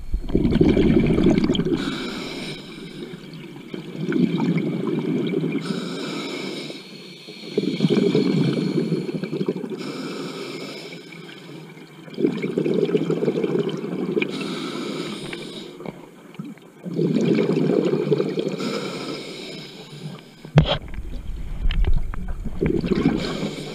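Scuba diver breathing through a regulator underwater: a hiss on each inhale and a loud gush of exhaust bubbles on each exhale, about one breath every four to five seconds. There is a sharp knock about twenty seconds in.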